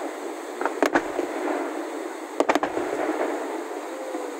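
Aerial firework shells bursting: one sharp bang about a second in and a quick double bang about two and a half seconds in, over steady background noise.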